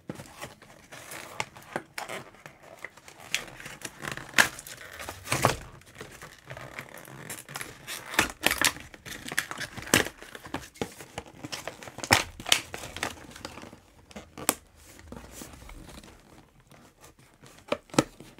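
Doll box packaging being torn open by hand: cardboard and plastic crinkling, tearing and snapping in irregular bursts with sharp clicks, easing off near the end before two last sharp snaps.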